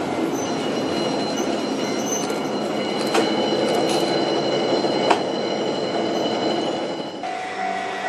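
An Ikoma Cable funicular car rolling along its track past the level crossing: a steady rumble of steel wheels on rail with a thin, steady high-pitched squeal. A few sharp clacks come about three, four and five seconds in. Near the end the sound drops to a lower, steadier hum.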